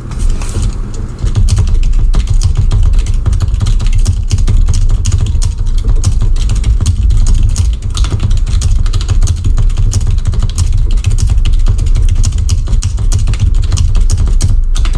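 Fast, continuous typing on a computer keyboard: a dense stream of keystroke clicks over a heavy low rumble, picking up about a second in.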